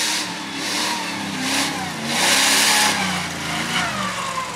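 A motor vehicle engine revving in repeated bursts, four times, the longest and loudest about two seconds in.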